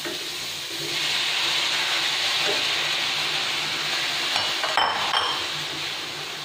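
Chopped tomatoes sizzling as they go into a pan of frying onions, the sizzle swelling about a second in, while a wooden spoon stirs them through. A few clinks come about two-thirds of the way in.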